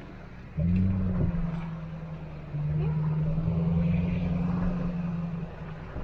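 Jeep Grand Cherokee WJ's engine pulling under load on a wooded off-road trail, heard from inside the cab. After a short lull it picks up about half a second in and holds a steady drone, stepping louder about two and a half seconds in.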